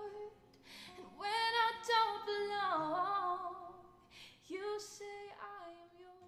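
A woman singing a slow melody with long held notes that slide between pitches, fading away near the end.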